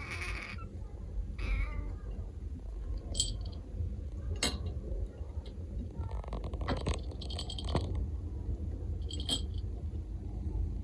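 Munchkin kitten giving two short, husky cries near the start, rather than a clear meow, followed by several sharp clicks or taps.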